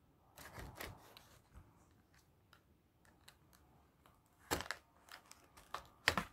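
Plastic packaging of a Playmobil figure crinkling and rustling as it is handled in the hands, faint at first, with a louder crackle about four and a half seconds in and a run of sharp crinkles near the end.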